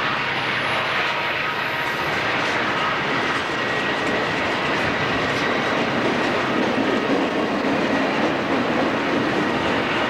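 Southern Pacific freight train cars rolling past on a curve: a steady rumble and rattle of wheels on rail, with a few faint thin high tones over it. The rumble grows a little heavier in the second half.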